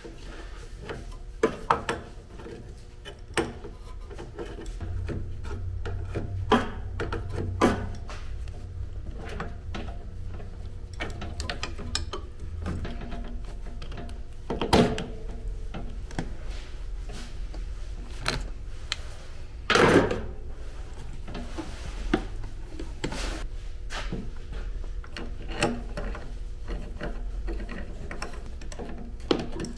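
Garage disassembly sounds from a Jeep Cherokee's front end: hand tools and loose metal and plastic parts clicking, knocking and rubbing. There are two louder clunks, one about halfway through and another some five seconds later, and a low hum comes and goes in the first half.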